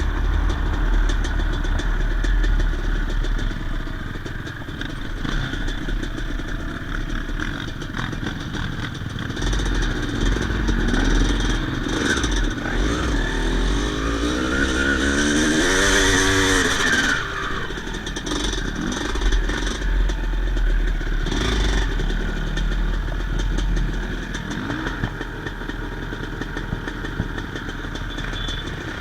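Yamaha YZ250 single-cylinder two-stroke dirt bike engine running under way, its pitch rising and falling with the throttle and climbing to a peak about halfway through, over a steady low rumble.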